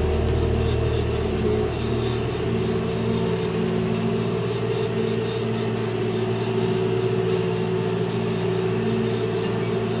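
Tractor engine running at a steady speed, heard from inside a tractor cab.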